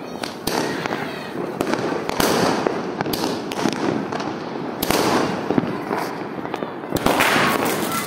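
Aerial fireworks and firecrackers going off all around: a dense crackle with sharp bangs every second or so, the loudest burst about seven seconds in.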